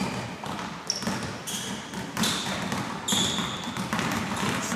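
Basketballs being dribbled on a gym floor, an irregular patter of bounces, with a few short high squeaks.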